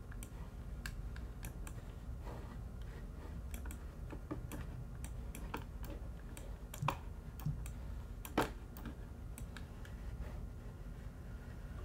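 Sparse, irregular clicks of a computer mouse and keyboard, a few louder than the rest about seven and eight and a half seconds in, over a low steady hum.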